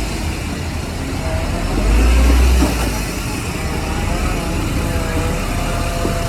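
Heavy earthmoving machinery running: a diesel engine at steady work, with a deeper low rumble swelling for under a second about two seconds in.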